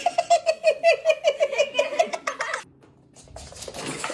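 High-pitched giggling: a quick run of about seven short laughs a second that stops abruptly about two and a half seconds in.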